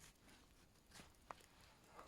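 Near silence broken by faint knife work on wood: a soft short scrape about a second in and a sharp small click just after.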